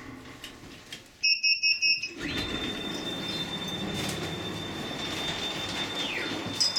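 Funicular car's door warning beeper sounding a quick string of about half a dozen beeps, followed by a steady high whine over the rumble of the car as the doors open. The whine glides down in pitch near the end.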